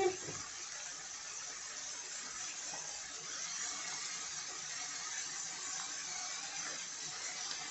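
Cubed pork fat and chopped onion sizzling steadily in a frying pan.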